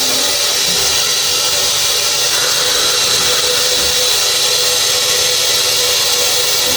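Dental equipment running in a child's mouth during a baby-tooth extraction: a loud, steady hiss with a faint steady hum under it.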